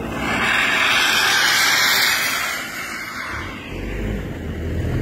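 4x4 vehicle driving through deep snow: a loud, even rushing hiss of engine, tyres and snow. It eases about three seconds in, giving way to a lower engine rumble.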